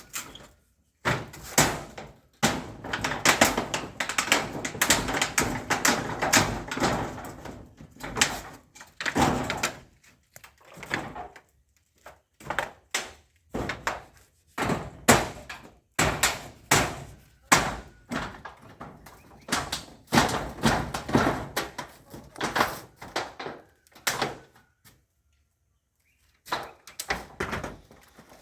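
Irregular hammer blows and knocks as a pit latrine structure is knocked apart, with a few seconds of clattering in between. The blows stop for a couple of seconds near the end.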